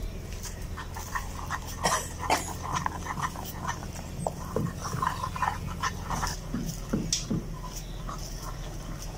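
Wooden spoon scraping and knocking against a karai as it stirs milk and milk powder into a thickening mixture, in short irregular strokes over a steady low hum.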